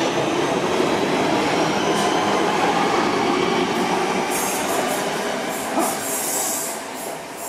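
Class 323 electric multiple unit pulling out and passing close by: wheels running on the rails with a faint whine rising in pitch. A high hiss joins about halfway through.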